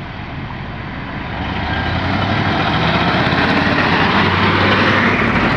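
Highway traffic: a small pickup passes, then a large tri-axle cargo truck drives by close. Its diesel engine and tyre noise grow louder from about a second and a half in and stay loud.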